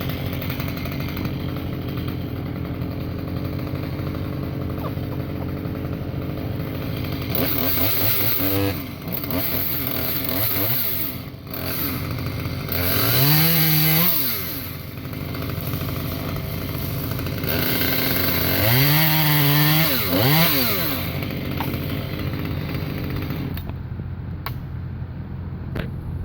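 Two-stroke chainsaw running, revved up to full speed twice for a few seconds each, cutting into an oak limb; it drops back toward idle near the end.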